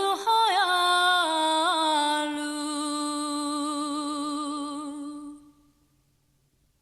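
A woman singing alone without accompaniment, with quick ornamented turns and then one long held note that fades out about five and a half seconds in.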